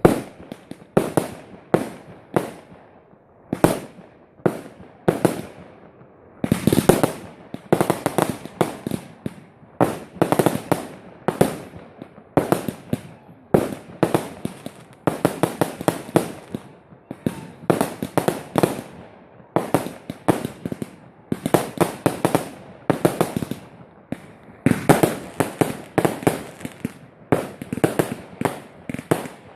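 A fireworks display: a continuous barrage of shell bursts and crackling bangs, several a second, with echoing tails and rapid clusters of reports now and then.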